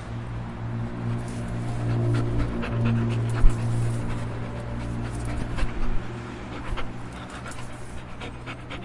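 A dog panting, with short, sharp sounds scattered through the middle, over a steady low hum.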